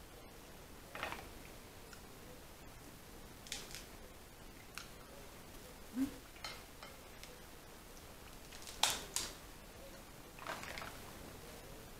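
Scattered sharp cracks and clicks of king crab and lobster shells being broken open and handled while eating, with light clinks of utensils, at uneven intervals.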